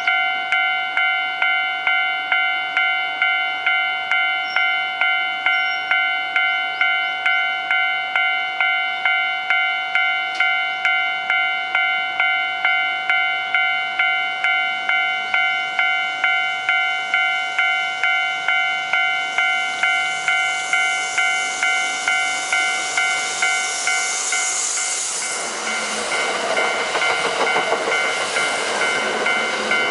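Level-crossing warning bell ringing steadily at about two strikes a second. From about 20 s a Kintetsu 30000 series Vista EX electric limited express approaches with a rising hiss, then passes close by in the last few seconds with a loud rumble and rattle of wheels on rail that drowns the bell.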